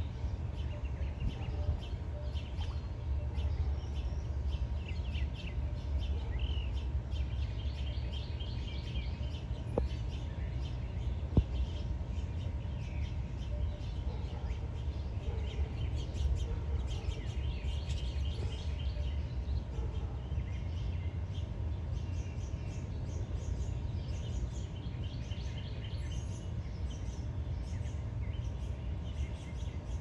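Small songbirds chirping and trilling on and off in the background over a steady low rumble, with two sharp clicks a little over a second apart near the middle.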